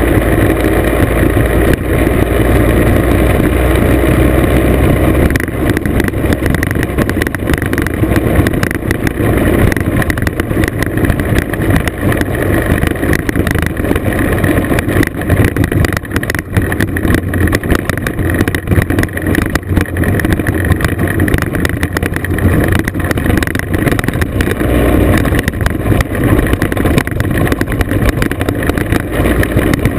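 Classic scooter engine running steadily under way on a gravel road, mixed with wind on the microphone and the rattle and knocks of gravel and bumps under the wheels.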